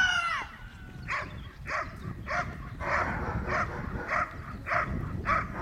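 A dog barking over and over, about two barks every second, after a loud high cry that rises and falls at the very start.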